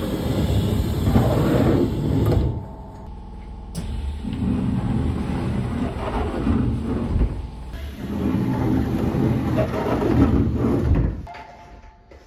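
Hokuso 9100 series commuter train's sliding passenger doors opening and closing, with the rumble of the train and door mechanism. The sound changes abruptly several times as short clips are cut together.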